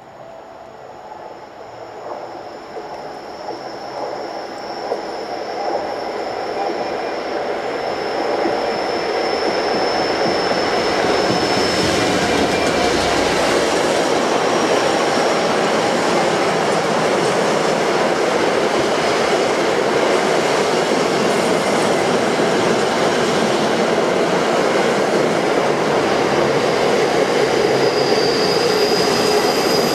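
Class 66 diesel locomotive hauling a freight train, growing steadily louder over about ten seconds as it approaches and passes. A long rake of empty car-carrier wagons then rolls by loudly and steadily, with a high thin wheel squeal.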